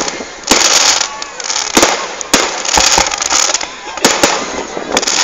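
Aerial fireworks display: a string of sharp bangs as shells burst, about one every half second to a second, with crackling and hissing filling the gaps between.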